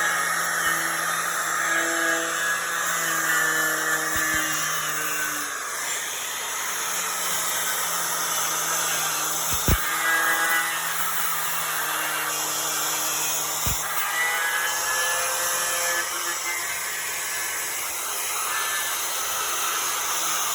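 Milwaukee 11-amp angle grinder running steadily with a twisted-knot wire wheel, scouring paint and rust off a metal door, with three sharp ticks along the way.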